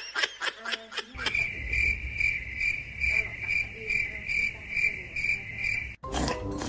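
High insect chirping repeated in an even rhythm, about two and a half chirps a second. A laugh tails off at the very start, and near the end the chirping cuts off into music.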